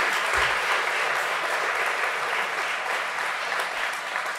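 Audience applauding steadily, tapering off slightly toward the end.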